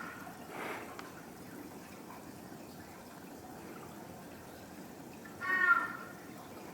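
Crested ibis giving one short "kaau" call about five seconds in, over a steady background hiss.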